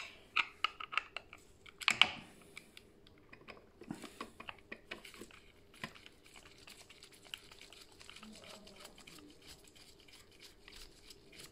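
Small clicks and knocks of a screwdriver and gloved hands working the plastic drive-wheel module of a Samsung PowerBot robot vacuum as its centre screw is undone. A cluster of sharp clicks comes in the first couple of seconds, the loudest about two seconds in, then fainter scattered ticks.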